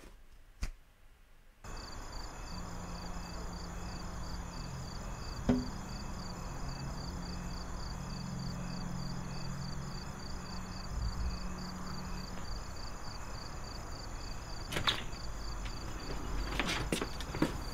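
A click about half a second in, then night-time insects chirping in a steady pulsing rhythm, with a low drone under them for several seconds. Near the end, a few sharp knocks and clicks as a door opens.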